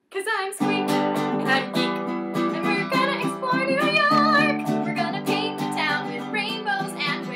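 A ukulele strummed in chords while a woman sings a melody over it.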